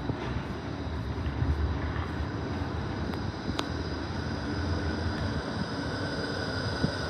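E-class tram approaching and pulling into a stop: a low rumble from the wheels on the rails with steady high tones above it, growing a little louder toward the end. A single sharp click sounds about three and a half seconds in.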